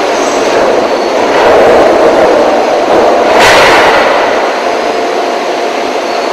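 Wire rod rolling mill machinery running: a loud, steady industrial din with a humming tone through it, and a short, sharp burst of noise about three and a half seconds in.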